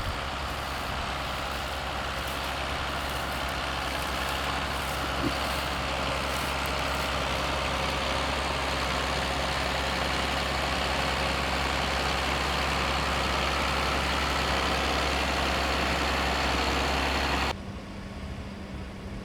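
A modern farm tractor's diesel engine running steadily while ploughing, with a constant low hum. About a second and a half before the end the sound cuts abruptly to a quieter background.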